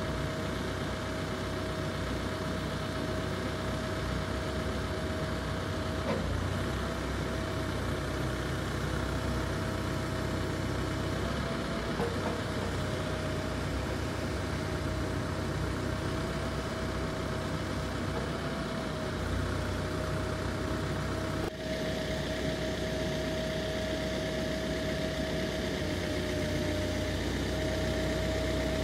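Case backhoe loader's diesel engine running steadily at low revs while the backhoe arm is worked, with a steady high whine over the engine.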